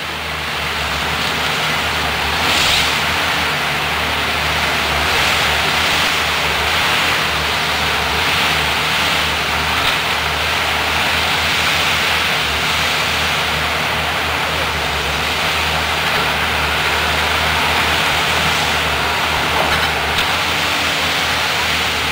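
Komatsu forwarder's diesel engine running steadily while its hydraulic crane loads logs, with an even hiss over the engine drone.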